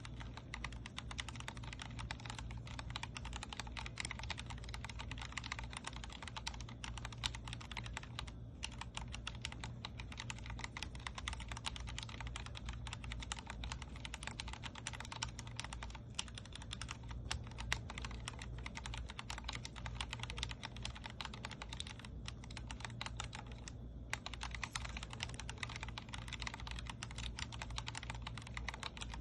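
Continuous fast typing on a Vortex Core 40% mechanical keyboard with Cherry MX Speed Silver linear switches, a dense run of key clicks with brief pauses about eight and twenty-four seconds in. A steady low hum sits underneath.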